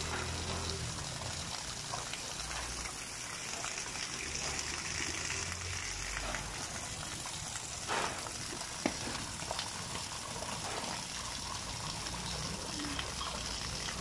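Small artificial waterfall pouring steadily down a rock wall into a garden pond, with a couple of small knocks about eight and nine seconds in.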